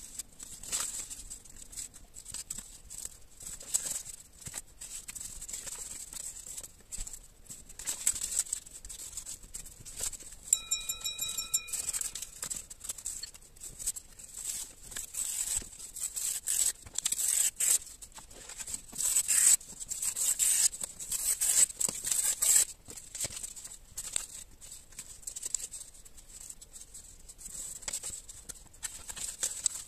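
Sheets of coloured paper being torn, handled and glued down with a glue stick: a run of short rustles and rips, busiest and loudest about halfway through.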